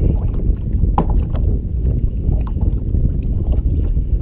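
Wind rumbling on the microphone on a kayak, with scattered light knocks and taps.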